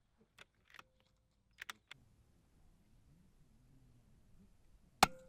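A few light clicks and taps, then one sharp, much louder click or knock near the end, with a brief ring after it.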